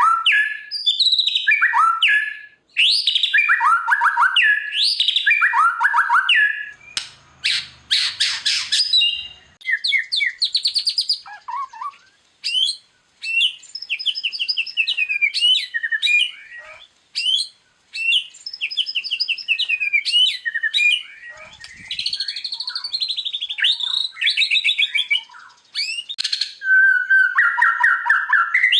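White-rumped shama (murai batu) singing a long, varied song: loud whistled phrases, fast trills and a rapid rattling stretch, separated by short pauses.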